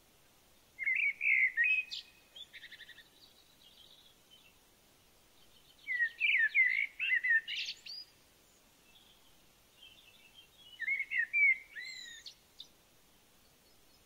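A songbird singing three short phrases of varied warbling notes and trills, each about two seconds long, with pauses of a few seconds between them.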